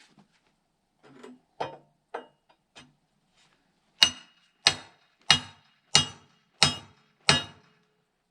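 A few light knocks, then six sharp metallic strikes about two-thirds of a second apart, each with a short ring: a steel tool hammering at frozen dirt packed inside a dozer's steel blade.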